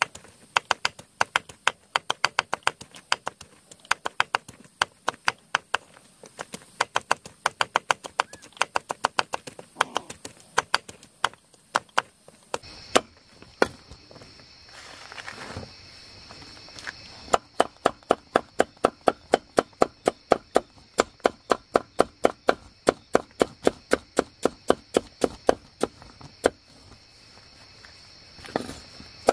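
Knife chopping rapidly on a wooden chopping board, about four strokes a second, in long runs broken by short pauses.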